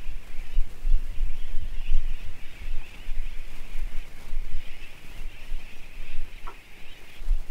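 Dense, continuous chorus of a large seabird colony, hundreds of birds calling at once, with wind buffeting the microphone in gusts underneath.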